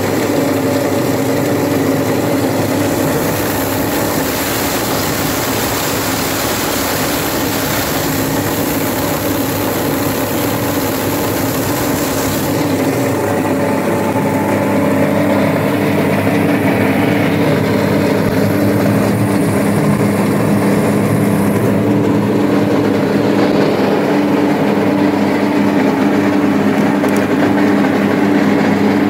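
Plastic shredder machine running steadily, chopping plastic into flakes, with a constant mechanical hum. The hiss in the upper range drops away about halfway through.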